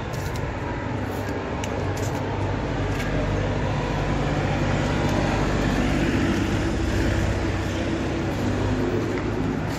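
Steady low mechanical rumble and hum of vehicle noise, a little louder in the middle.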